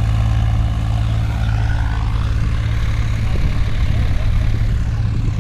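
Sonalika tractor's diesel engine running steadily at a constant speed, an even, loud drone.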